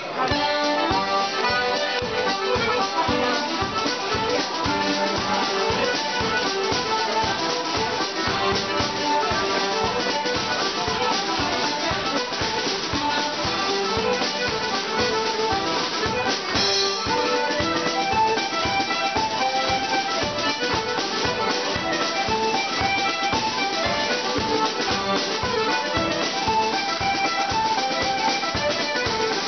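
Céilí band playing a lively Irish reel: button accordion, fiddle, flute and tin whistle carry the tune over a steady beat on the céilí drums.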